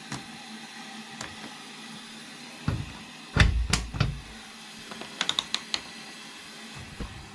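Scattered knocks and clicks, the loudest a pair of knocks about three and a half seconds in, then a quick run of about five sharp clicks.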